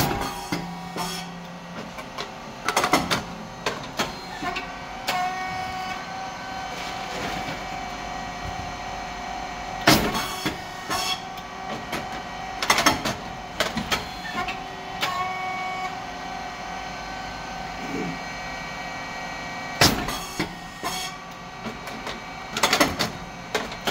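Puffed rice cake machine (SYP8002) running its production cycle over a steady hum from its motor and hydraulic pump. A sharp bang comes about every ten seconds as the heated moulds open and the cakes puff. About three seconds after each bang comes a burst of clattering knocks from the cylinder and feeding plate moving.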